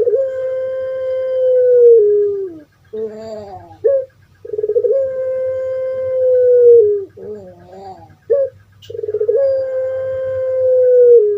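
Puter pelung (ringneck dove, Streptopelia risoria) giving its long drawn-out crowing coo three times, about four and a half seconds apart. Each call is one held note that swells and then drops in pitch at its end, with short wavering coos between the calls.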